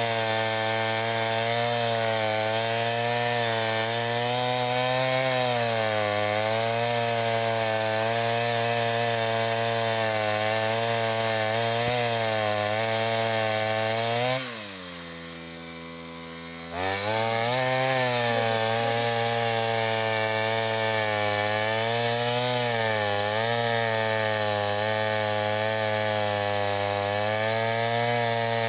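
Engine-driven saw cutting wood, its engine running fast under load with a wavering pitch. About halfway through it drops to idle for a couple of seconds, then revs back up and cuts on.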